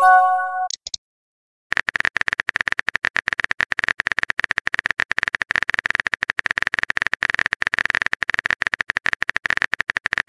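A short message chime of a few pitched tones as a chat message pops up, then after about a second of silence, rapid, even keyboard-typing clicks of a texting-app sound effect from about two seconds in.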